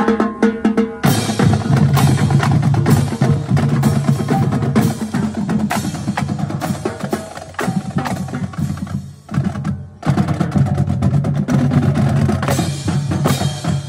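Military drum line playing a fast cadence on snare drums, bass drums and cymbals, with a short break about nine seconds in, stopping near the end.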